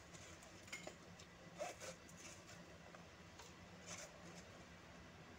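Faint, scattered light taps and soft rustles of fresh herbs and garlic cloves dropping into a plastic mixer-grinder jar.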